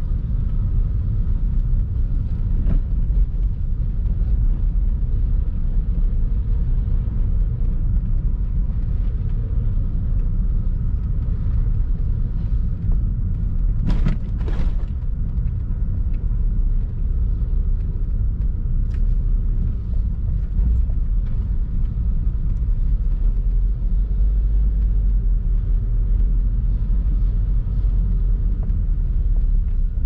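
Steady low rumble of a car driving slowly, its engine and tyres on the road, with two short sharp knocks about halfway through.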